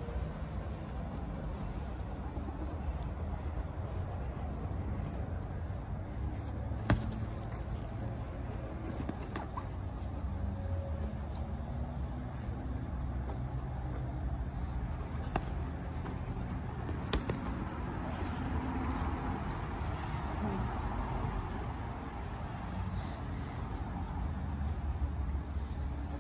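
Crickets chirping in one steady high trill over a low background rumble, with a few sharp knocks, the loudest about seven seconds in.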